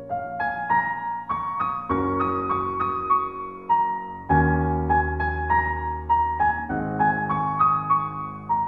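Background piano music: a gentle melody of single notes, about three or four a second, over deeper held bass notes that change every two seconds or so.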